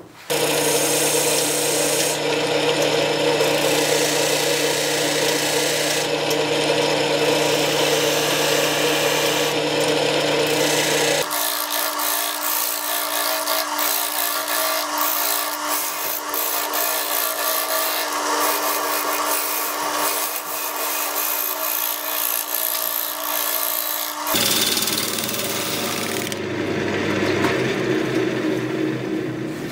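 Wood lathe spinning a wood blank while a gouge cuts it: a steady scraping hiss of the tool on the wood over the lathe's motor hum. The sound changes abruptly about 11 seconds in and again about 24 seconds in.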